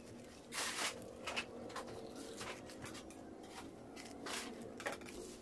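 Faint crinkling of paper cupcake liners and light scraping of a metal spatula as macaroon squares are lifted into the cups, in a few short irregular bursts.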